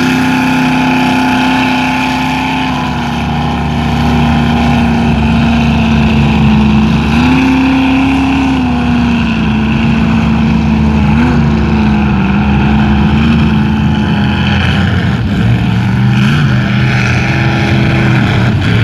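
Lifted four-wheel-drive truck's engine held at high revs as it plows through a deep water-filled mud pit. The pitch rises briefly about seven seconds in and wavers up and down near the end.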